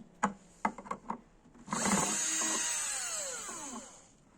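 A few light knocks on wood, then a cordless power drill runs briefly and is released, its motor whine falling in pitch as it spins down.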